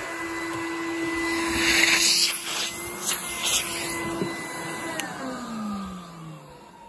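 1988 Numatic Henry HVR200 vacuum cleaner running loudly with a steady high whine, which the owner puts down to squealy motor bearings; briefly louder about two seconds in. About five seconds in it is switched off and the motor winds down, its whine falling in pitch.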